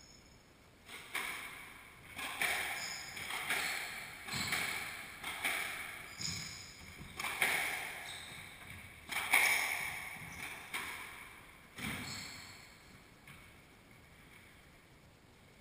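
Squash rally: the ball cracking off rackets and the court walls about once or twice a second, each hit echoing around the enclosed court, with a couple of brief shoe squeaks on the wooden floor. The hits stop about twelve seconds in as the rally ends.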